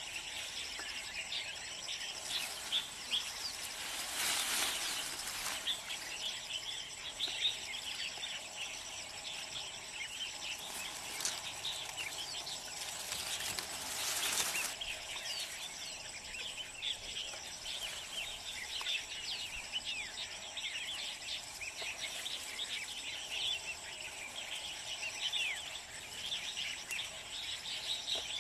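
Outdoor hillside ambience: a steady high insect drone under many short bird chirps, with rustling of leaves and twigs as wild berries are stripped by hand into a bamboo basket, loudest about four seconds in and again around fourteen seconds.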